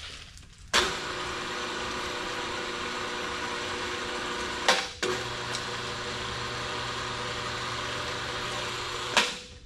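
Electric hydraulic pump motor running steadily as the plow's rear tail wheel is raised and lowered, switched off briefly about halfway and started again, with a click at each start and stop.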